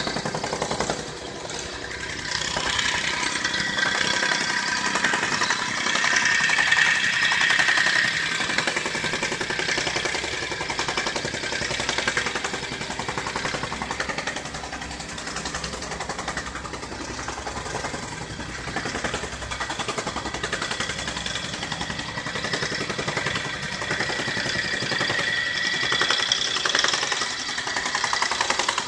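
Construction machinery engine running steadily with a rapid, even clatter and a wavering whine over it.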